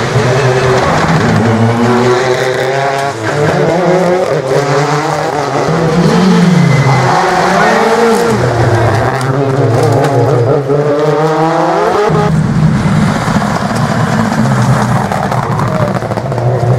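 Subaru Impreza rally car driven hard on gravel, its engine note climbing and dropping again and again through gear changes and lifts, with a sharp drop and pick-up about twelve seconds in. Its tyres scrabble on the loose gravel underneath.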